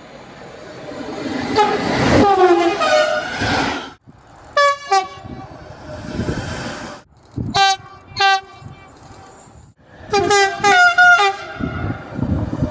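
Train horns sounding in a string of short clips. First comes a longer chord-like horn over the rising rumble of an approaching train. Then, after abrupt cuts, a single short blast, two short toots, and a quick series of several blasts.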